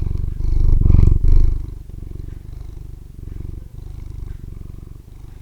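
Domestic cat purring close to the microphone, loudest for the first second and a half, then softer and steady.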